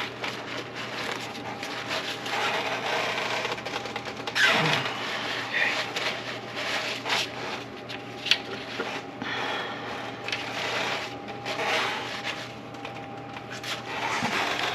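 Hand-tool work in an engine bay: rubbing and scraping with scattered light clicks of metal and plastic, over a faint steady hum.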